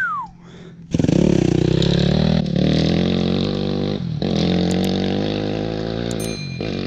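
Yamaha YZ 250 dirt bike engine accelerating hard, its pitch climbing with two short dips about 2.5 and 4 seconds in as the rider shifts up, then pulling steadily. It starts after a brief quiet moment with a falling whistle, and a few short clicks and chimes come near the end.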